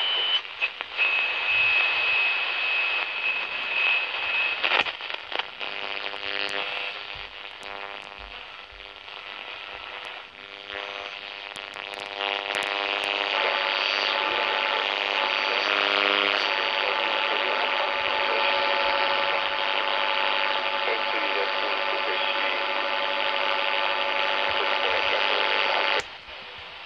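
Grundig Yacht Boy 215 portable world-band radio being tuned by hand: static hiss, with a steady high whistle in the first few seconds. Snatches of tone and music drift through the noise, then hiss with held steady tones, which cuts off suddenly near the end.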